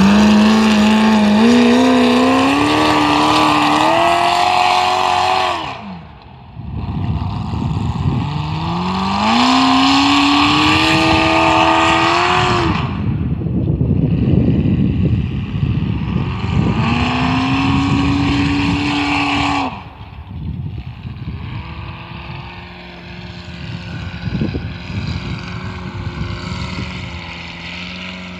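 Small-block V8 engine in a Farmall M tractor revving hard three times as it pulls away, its pitch climbing through each run and then dropping off. After the third run it is quieter and steadier as the tractor moves off into the distance.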